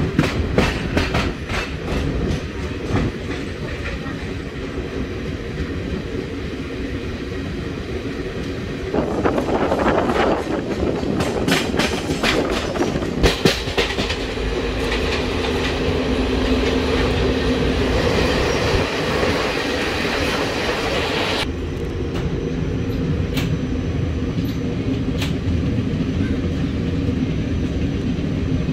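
Moving passenger train: a steady rolling rumble, with the wheels clacking over rail joints in quick clusters near the start and again about halfway through. The running gets a little louder about nine seconds in.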